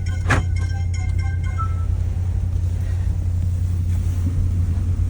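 Steady low road rumble of a car driving, heard from inside the cabin, with faint music in the first two seconds and a short click just after the start.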